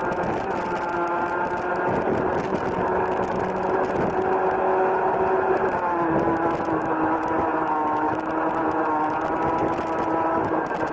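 Rotax Junior Max 125cc single-cylinder two-stroke kart engine running hard at high revs. Its pitch climbs slowly, dips a little about six seconds in as the kart eases off, then holds steady.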